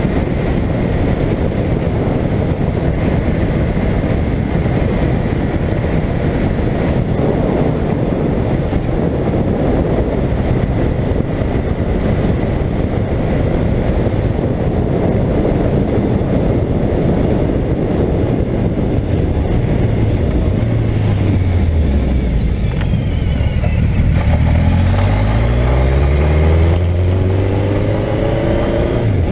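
Suzuki GSX1400 inline-four motorcycle engine running at road speed under a heavy rush of wind and road noise. About two-thirds of the way in, the engine note drops as the bike slows, then climbs again in steps as it accelerates.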